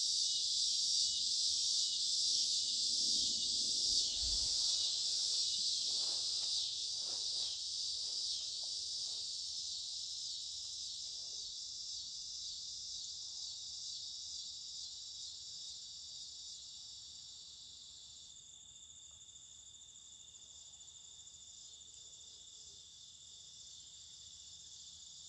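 Chorus of insects, a steady high-pitched shrill buzzing, fading slowly over the first twenty seconds.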